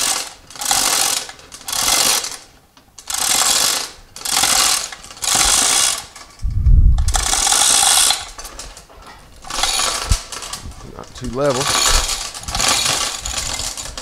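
Hand-operated chain hoist being pulled to lift a heavy casting: the chains rattle and clatter through the hoist in bursts about a second apart, one for each pull. A low thump comes about six and a half seconds in.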